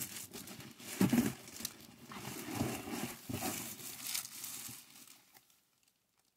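Bubble wrap and packaging rustling and crinkling as an item is unwrapped by hand, dying away a little after five seconds in.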